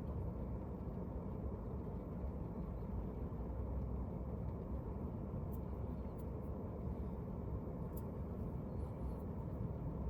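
Steady low rumble of a car driving, road and engine noise with no changes, with a few faint clicks in the middle.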